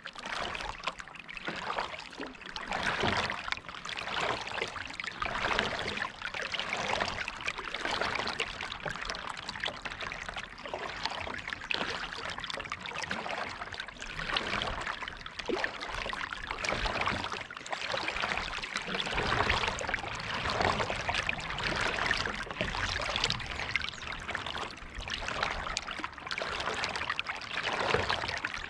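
Kayak paddle dipping and pulling through lake water, with splashing and water trickling off the blades, swelling and easing every couple of seconds with each stroke.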